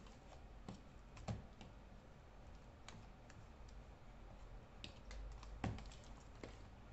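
A fork stirring thick banana bread batter in a mixing bowl, with scattered light clicks of the fork against the bowl. Two louder knocks stand out, one a little after a second in and one about a second before the end.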